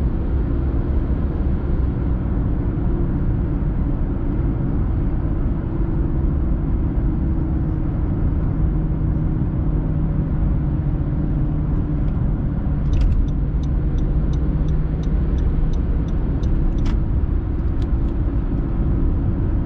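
Steady road and engine noise heard inside a car's cabin at highway speed, a low hum over tyre rush. A little past the middle, a turn signal ticks quickly and evenly for about four seconds.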